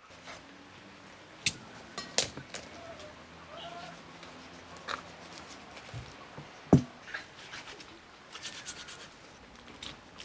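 Kitchen knife cutting through a raw chicken's joints and knocking on a wooden cutting board: a series of separate sharp knocks and cracks, the loudest about two-thirds in.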